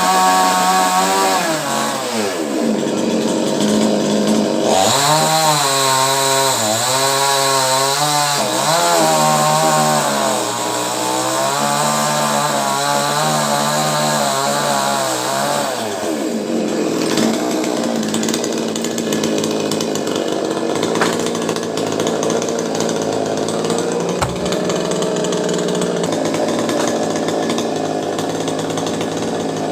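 Chainsaw engine cutting into a coconut palm trunk. Its revs fall early on, rise sharply about five seconds in and waver up and down under load as it cuts. After about sixteen seconds it drops to a lower, rougher running.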